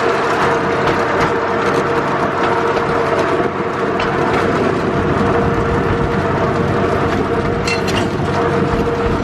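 Steady rattling and running noise of a moving vehicle, with a constant hum underneath and a few small clicks.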